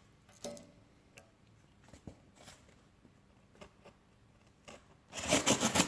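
A few light clicks and knocks of handling, then near the end a loud, rapid rasping as the serrated blade of a Victorinox SwissTool saws through thick cardboard.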